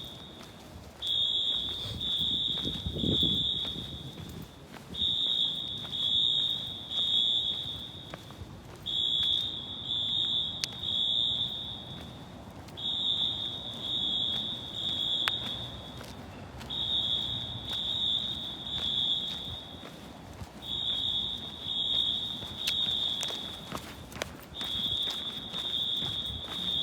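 Synchronized Wheelock AS fire alarm horns sounding the temporal-3 evacuation signal: three short, high horn blasts, then a pause, repeating about every four seconds.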